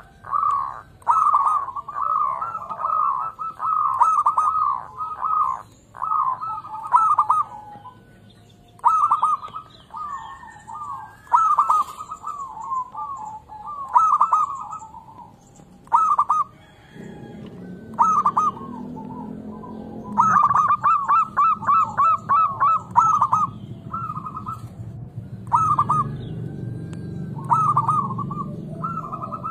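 Local zebra dove (perkutut) singing: groups of rapid, short, high coos, repeated with brief pauses between phrases. A low background rumble comes in a little over halfway through.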